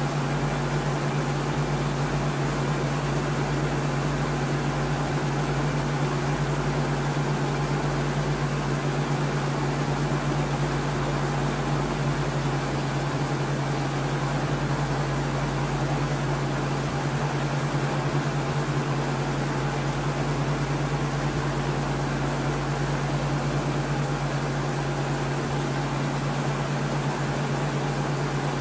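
Steady drone of a helicopter heard from on board: an even rushing noise over a strong, unchanging low hum.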